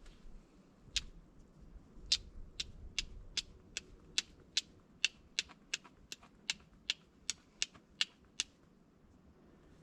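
A run of sharp, evenly spaced clicks, about two and a half a second, starting about two seconds in and stopping near the end.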